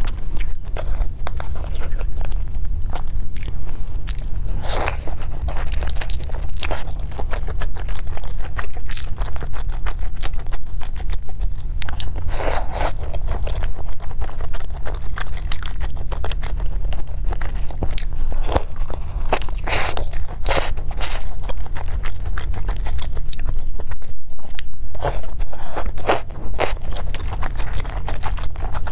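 Close-miked eating: biting and chewing a fried spring roll with a shrimp filling, with crackly crunches, and chopsticks scraping on a plastic takeaway container. A steady low hum runs underneath.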